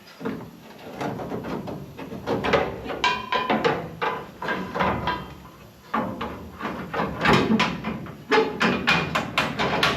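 Sheet-metal rocker panel section knocking and clattering against the van's body as it is forced into place, with many irregular impacts and a brief metallic ring about three seconds in.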